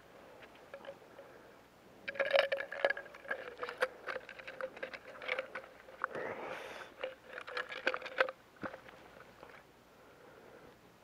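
Handling noise from gloved hands working a small ice-fishing rod and its reel over a plastic tackle box. A dense run of clicks and rustling starts about two seconds in and stops near eight seconds, with a steady hum underneath.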